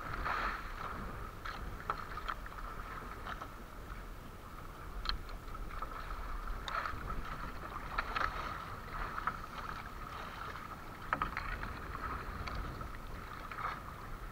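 Sea water rushing and splashing against a small outrigger boat's hull and bamboo floats: a steady rush with scattered sharper splashes every second or two.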